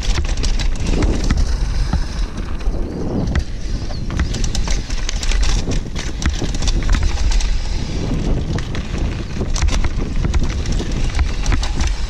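Downhill mountain bike running fast down a dry dirt trail: tyres rolling over loose dirt and stones, with constant rattling and clicking from the bike over the bumps. Heavy wind rumble on the action camera's microphone.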